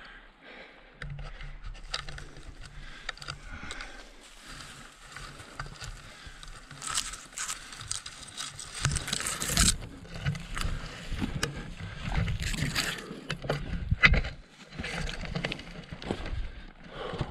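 Footsteps scrambling up a steep slope of loose rock and scrub: irregular crunching of stones underfoot and twigs scraping against the body-worn camera.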